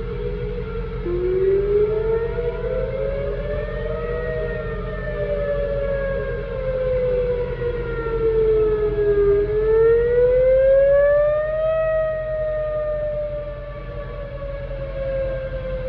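Whelen 2900 electronic outdoor warning siren sounding a slow wail on its weekly test: the pitch climbs for about three seconds, falls slowly, climbs again to a peak about twelve seconds in, then falls. Other sirens sound at the same time, their tones overlapping it.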